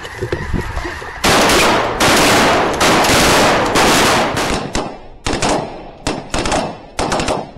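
Volley of shotgun fire from several hunters shooting at geese: shots overlap into a continuous barrage for about three seconds, then break into separate, scattered single shots that thin out near the end.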